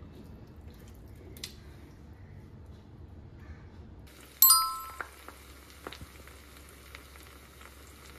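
A loud bell-like ding sound effect about halfway through, ringing and fading over about half a second, followed by a few faint ticks. Before it, only faint sounds of hands mixing rice in a steel plate.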